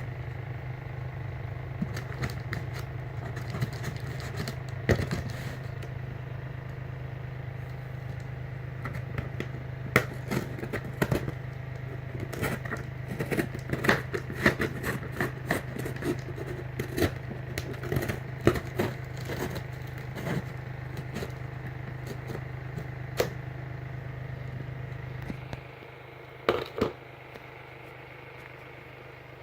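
Sneaker packaging being handled and opened by hand: scattered scrapes, clicks and rustles. A steady low hum runs underneath and drops away near the end.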